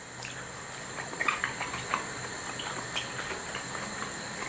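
Mushrooms frying in oil in a pan: a steady sizzle with irregular small crackles and pops throughout.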